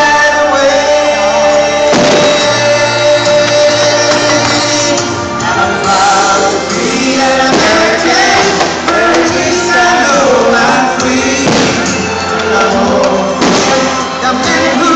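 Loud music with singing, with a few sharp bangs from fireworks bursting cut through it.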